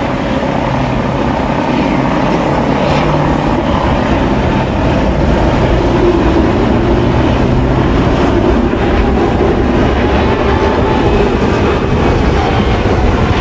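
Heavy vehicle engine running steadily: a continuous low rumble with a noisy hiss over it.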